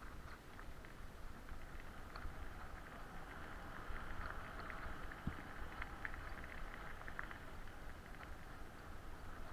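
Bicycle rolling along a dirt forest track: steady tyre noise with many small ticks and crunches, over a constant low rumble.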